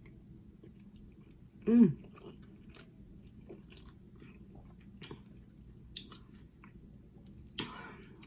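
A person chewing food close to the microphone, with scattered small mouth clicks. About two seconds in there is a short, loud vocal sound falling in pitch, and another brief mouth sound near the end.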